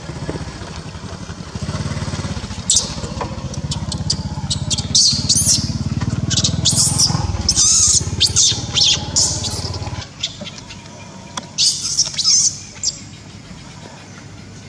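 Newborn macaque giving shrill, short squealing cries in quick succession, many of them between about three and thirteen seconds in. A low motor hum runs underneath and stops about ten seconds in.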